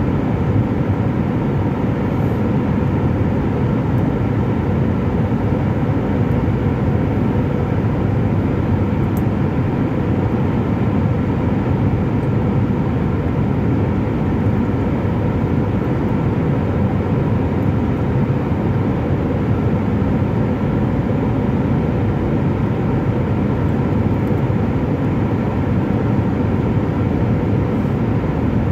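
Steady jet engine and airflow noise inside an airliner cabin, heard from a window seat over the wing, with a few faint steady hums running through it.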